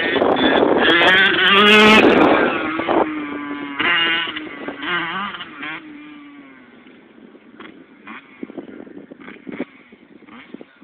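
Yamaha YZ85 two-stroke dirt bike engine revving as it passes close by, loudest about two seconds in, then fading as it rides away, its pitch rising and falling with the throttle.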